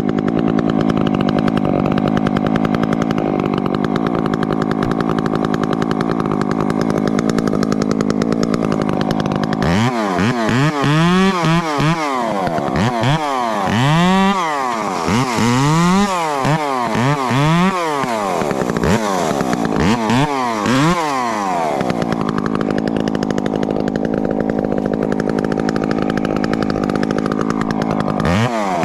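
Husqvarna 350 two-stroke chainsaw running at a steady speed, then revved up and down over and over for about twelve seconds as the throttle is tested. It settles back to a steady run, then revs again near the end.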